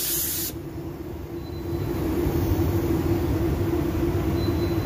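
Gravity-feed paint spray gun hissing as it lays a coat of clearcoat, cutting off abruptly about half a second in. After that there is a steady low mechanical hum with a drone.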